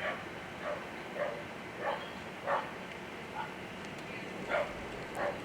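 A dog barking repeatedly, about eight barks spread unevenly across a few seconds, over a steady background hiss.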